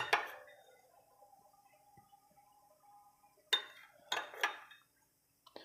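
A steel spoon clinking against a small glass bowl of beaten yogurt. There is one sharp clink at the start and three more, each ringing briefly, about three and a half to four and a half seconds in.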